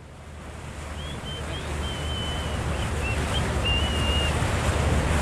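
Fishing boat under way on the river: a steady low motor rumble with water and wind noise, fading in over the first few seconds. A few faint, high, wavering chirps come through in the middle.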